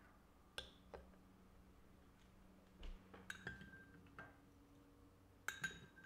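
Quiet clinks and taps of a metal spoon against a glass bowl as granola is scooped out, two of them ringing briefly, about halfway through and again near the end.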